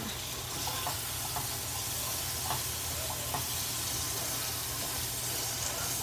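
Onion-and-spice masala with ginger-garlic paste sizzling steadily in hot oil in a nonstick pan, stirred with a wooden spatula, with a few faint ticks and scrapes. This is the masala being fried down (kosha) before the meat goes in.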